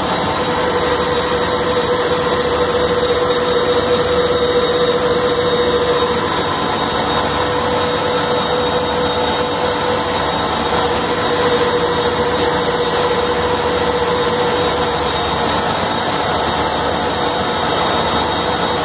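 Power Wheels ride-on car's 18-volt BaneBots electric motors running flat out on a roller dyno: a loud, steady whir with a whine that weakens about six seconds in, returns, and fades again near the end.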